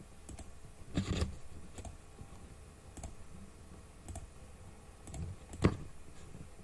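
Computer mouse clicks, several sharp single clicks at irregular intervals, the loudest about five and a half seconds in.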